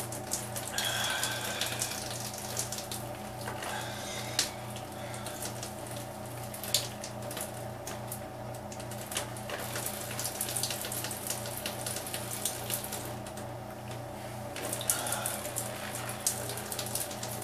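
Beer gushing and fizzing from a 16 oz Genesee can as it is gulped down in one go, with wet glugging and a dense crackle of foam and a few sharper clicks. A steady low hum runs underneath.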